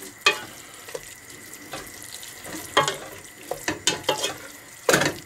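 Wooden spoon stirring thick, syrupy red onion jam in a stainless steel pot: irregular wet squelches and scrapes against the pot.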